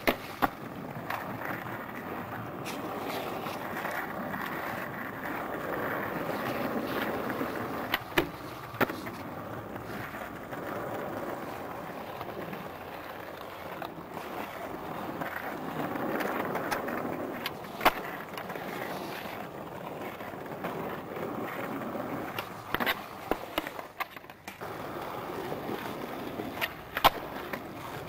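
Skateboard wheels rolling over paved ground, with about seven sharp clacks spread through it as tricks are popped and landed on the flat and on ledges.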